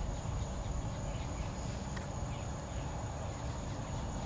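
Insects trilling in one steady, high, unbroken tone, over a low steady rumble, with a single faint click about two seconds in.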